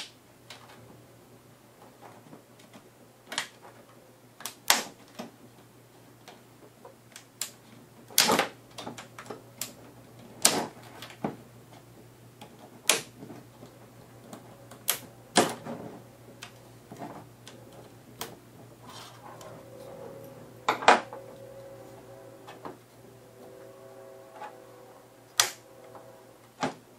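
Plastic LCD bezel of an Acer Aspire One netbook being pried off by hand, its snap clips popping free in sharp, irregular clicks, about a dozen over the stretch.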